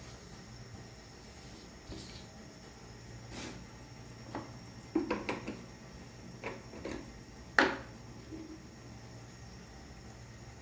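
A scattered run of short knocks and clatters of kitchen things being handled, several in quick succession about halfway through and the loudest one a couple of seconds later, over a low steady hum.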